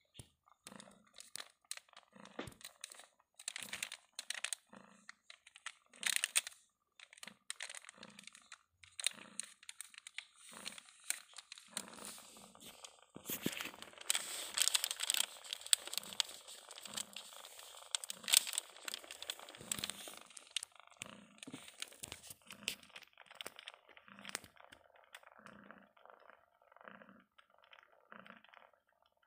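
Rustling, scratching and crinkling as a kitten moves in a cardboard box and is handled, with short scratchy ticks scattered throughout. A stretch of dense plastic crinkling comes in the middle.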